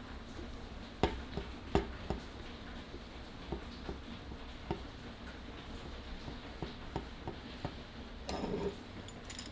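Light scattered clicks and taps from handling a wooden handle on the metal crank arm of an antique rotary egg beater, the two sharpest about one and two seconds in, with a short rustling scrape near the end.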